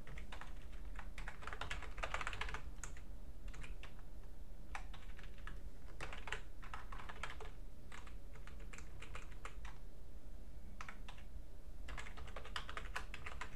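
Typing on a computer keyboard: runs of quick key clicks broken by short pauses, over a low steady hum.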